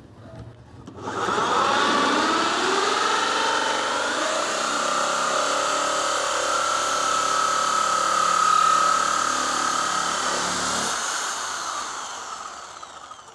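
Corded electric drill spinning a 65 mm holesaw through 12 mm plywood. It starts about a second in and cuts steadily, its pitch wavering at first under load and then holding, before the drill stops and winds down near the end. The cut goes through without trouble.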